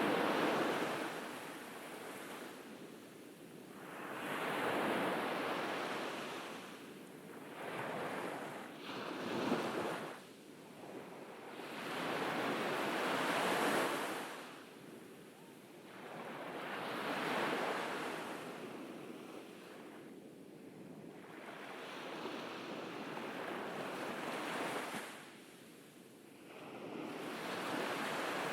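Ocean waves breaking and washing up on a beach, the surf swelling and fading every four to five seconds, with some wind on the microphone.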